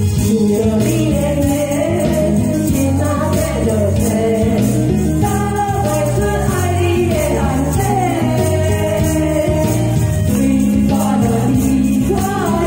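Two women singing a duet into microphones over a recorded backing track played through a loudspeaker, with handheld tambourines jingling on the beat.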